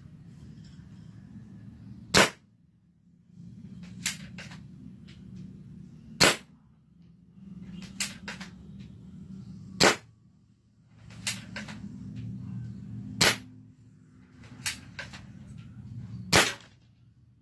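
Spring-powered airsoft KAC PDW replica fired five times, single sharp snaps about three to four seconds apart. It is a one-cock, one-shot spring gun, so there is a pause between shots, with fainter clicks in between.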